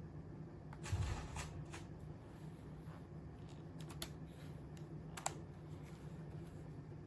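A few scattered sharp clicks and a short rustle over a low steady hum, like small objects being handled.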